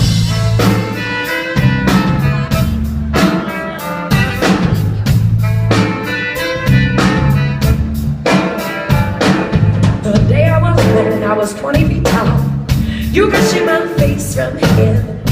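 A live soul-rock band playing an instrumental passage, with a heavy bass line and a steady drum beat under pitched instruments.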